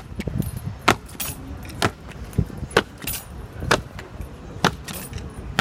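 Two honour guards' leather jackboots stamping on stone paving in a slow, high-kicking parade step: a sharp crack about once a second, the two marchers nearly in unison.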